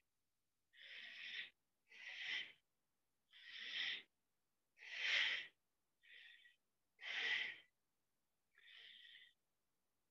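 A man breathing hard from exertion, working a weighted stick: about seven breaths, roughly one a second, each swelling and then stopping short.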